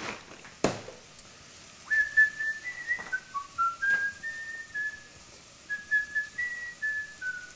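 A man whistling a tune absent-mindedly, clear single notes stepping up and down in a melody, starting about two seconds in. A sharp click comes just before.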